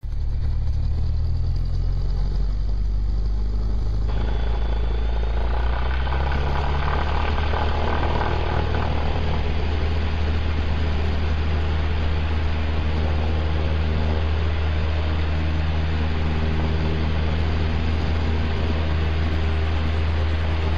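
Cessna 172's piston engine and propeller droning steadily in the cockpit, with a constant rush of air and cabin noise over it. The hiss gets louder and fuller about four seconds in.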